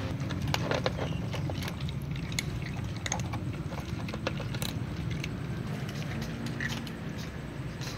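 Cats crunching dry kibble: many irregular sharp crunches and clicks, over a steady low hum.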